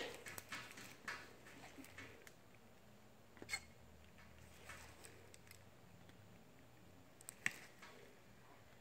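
Near silence: room tone with a few faint light clicks, the sharpest about three and a half and seven and a half seconds in. These come from a soldering iron tip touching the solder joints of a circuit board's connector pins during reflow.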